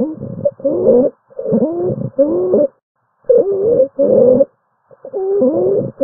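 Recorded stridor: a person's noisy, harsh breaths, each with a wavering, gliding pitch, coming about every half second to second with a longer pause about three seconds in. Stridor is the sign of a narrowed or obstructed upper airway, as in croup or epiglottitis.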